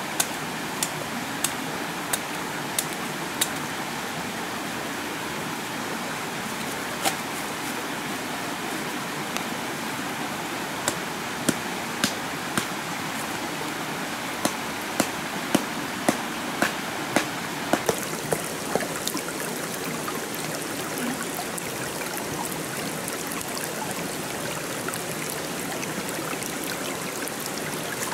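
A knife chopping into bamboo stalks: a run of sharp strikes in the first few seconds, a few single chops, then a quicker run of about eight strikes about half a second apart in the middle. Steady rushing of a stream runs underneath.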